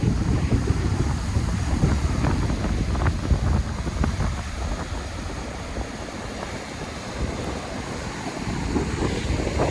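Sea surf washing on the shore, with wind buffeting the microphone. The surge is loud at first, eases off a few seconds in, then builds again near the end as the next wave comes in.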